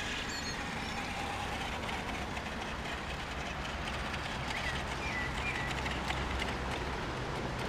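Helion Dominus 10SC, a brushed-motor 1/10 RC short-course truck, driving across a wet dirt field. It gives a steady, even running noise, a little fuller in the low end about two thirds of the way through as the truck comes closer.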